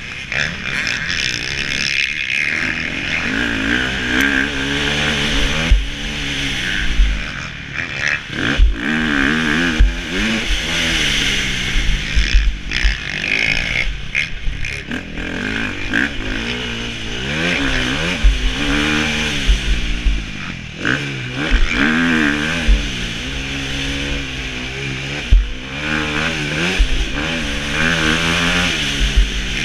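Motocross bike engine heard from the rider's helmet camera, revving up and falling back again and again as it is ridden hard around the track. Low rumble and occasional thumps from wind on the microphone and the bike landing over bumps.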